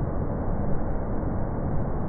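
Water rushing through the open spillway gates of a concrete dam and churning in the river below: a steady, low rushing noise without let-up.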